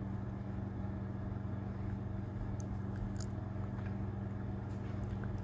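A steady low hum with a few faint ticks over it.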